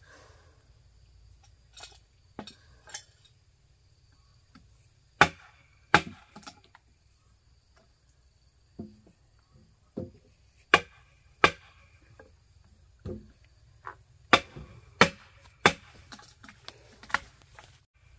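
Hand tool striking the timbers of a wooden house frame: irregular sharp knocks, about fifteen blows with pauses of up to a few seconds between them, several coming in quick pairs.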